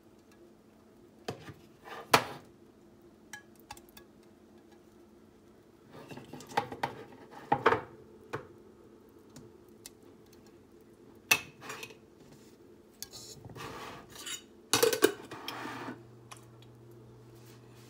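Metal spoon and cookware clinking, knocking and scraping as ghee is spooned into a cooking pot: scattered clinks, the loudest cluster about fifteen seconds in. A low steady hum starts near the end.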